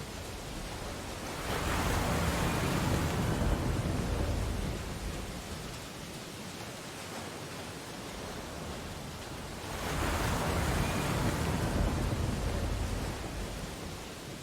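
Ocean waves breaking on a beach: two surges, the first building about a second and a half in, the second just before ten seconds in, each washing in and fading over a few seconds.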